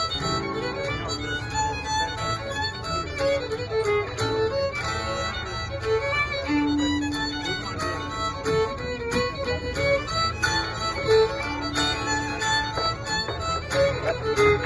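Irish hornpipe played on fiddle with guitar accompaniment: a continuous run of quick fiddle notes over steady strummed chords.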